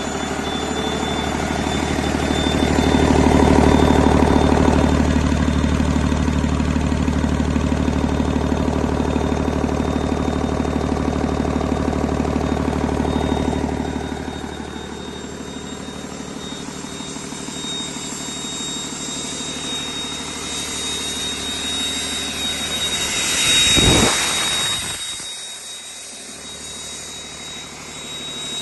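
2015 Cummins ISL9 8.9-litre inline-six diesel engine running on a test run, held at raised speed for the first half, then dropping back to a lower idle about 14 s in. A thin steady high whistle runs over it, and about 24 s in there is a brief loud rush.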